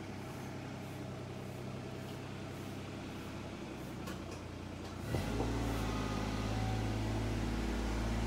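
A low, steady engine hum that gets louder suddenly about five seconds in.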